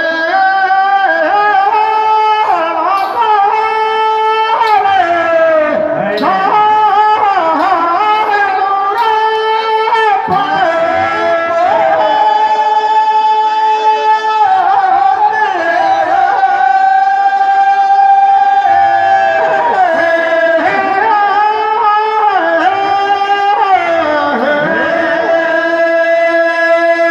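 Men singing Teja gayan, a Rajasthani folk song in praise of Tejaji, in long held notes that slide and bend between pitches.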